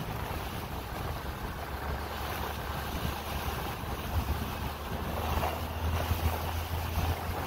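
Wind buffeting the microphone over a steady rush of water, with a steady low hum underneath from about a second in.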